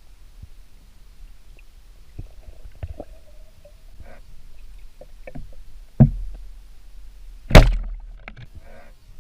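Scattered small clicks and knocks, then two loud thuds about a second and a half apart, each trailing off in a low rumble.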